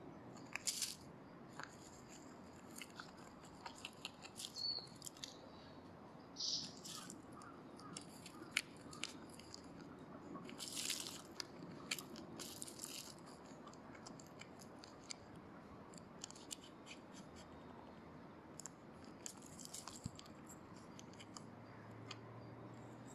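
Dry leaf litter and loose soil rustling and crackling in short, irregular bursts as a lesser Japanese mole pushes and burrows through it.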